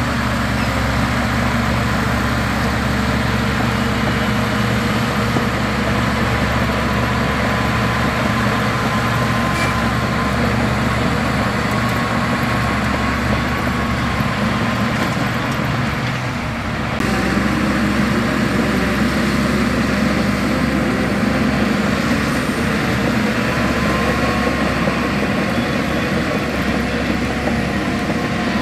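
Heavy diesel engine of earthmoving machinery running steadily, with a brief dip and a change in engine note about two-thirds of the way through.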